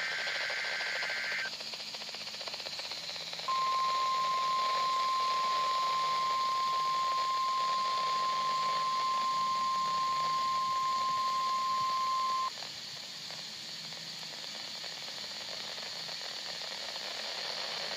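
NOAA Weather Radio test over a receiver: a short screeching burst of the SAME digital header ends about a second and a half in. A few seconds later the 1050 Hz warning alarm tone sounds, one steady pitch held for about nine seconds before cutting off, leaving receiver hiss.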